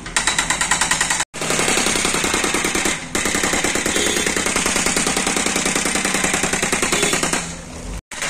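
Hydraulic breaker on a JCB backhoe loader hammering into brick and concrete rubble, a rapid steady chatter of about ten blows a second, pausing briefly about three seconds in.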